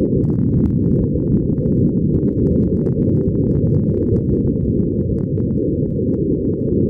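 A loud, steady low rumble with faint scattered crackles above it.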